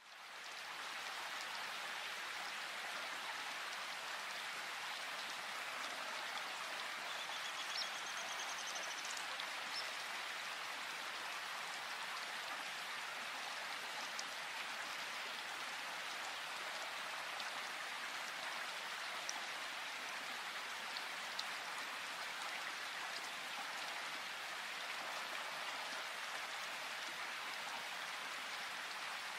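A steady, even hiss like falling rain, rising in within the first second and then holding level, with a few faint ticks scattered through it.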